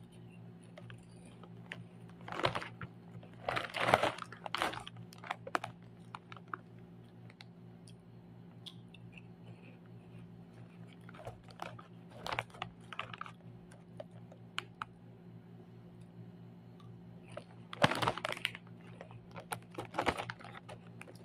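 Plastic chip bag crinkling and rustling as a hand works inside it, in three bursts, with scattered sharp crunchy clicks between them. A faint steady hum runs underneath.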